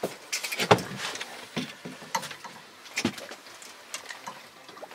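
Irregular knocks and clicks of fishing gear being handled aboard a small boat, a handful of sharp ones spread through.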